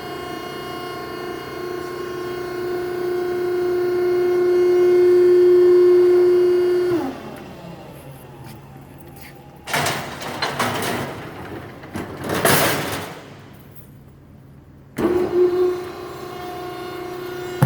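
HWI vertical baler's hydraulic pump and motor running with a steady pitched hum as the ram rises, growing louder, then winding down with a falling pitch about seven seconds in. A few seconds of rushing noise follow, and the pump hum starts again near the end.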